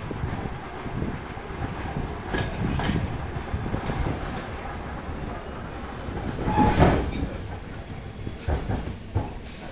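DR1AMv diesel multiple unit running into a station: a low rolling rumble with irregular wheel clacks over rail joints, and a louder clatter about seven seconds in.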